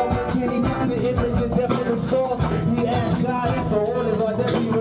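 A live band playing a song over a steady beat, with electric guitar and a sung melody.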